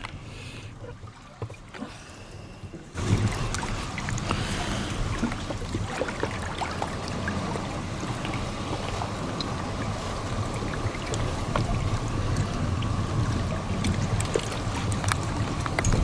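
Outdoor ambience with wind rumbling on the microphone and scattered faint clicks. It gets louder about three seconds in.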